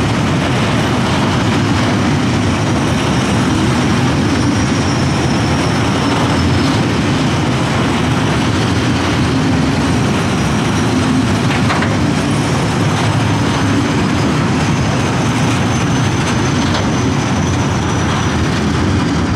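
Freight train of covered hopper wagons rolling past close by: a steady, loud rumble of steel wheels on the rails, with faint high-pitched wheel squeal now and then.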